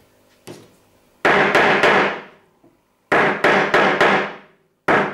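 A mallet striking a steel cog stamp into dampened leather: sharp, ringing whacks in quick groups, three, then four, then another pair starting near the end.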